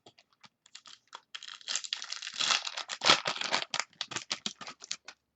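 A trading-card pack wrapper being torn open and crinkled: a dense run of crackles, rustles and small clicks that thickens about a second and a half in.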